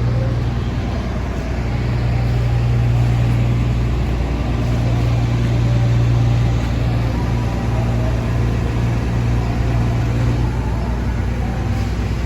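Steady low engine drone with a constant hum and an even rushing noise over it, typical of a ship's engine heard aboard.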